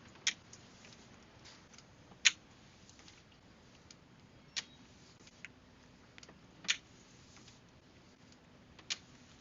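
Sharp single clicks repeating about every two seconds, over a faint steady hum.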